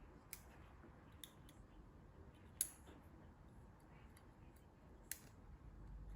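Faint, sharp clicks of multimeter probe tips and a plastic wiring-harness connector being handled while pins are probed for continuity, four clicks over several seconds with the loudest about two and a half seconds in.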